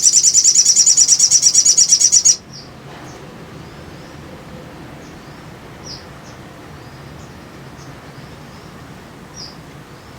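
A sogon (sogok ontong) songbird sings a loud, rapid trill of high notes for about two seconds. The trill stops abruptly, and scattered faint, short high chirps follow.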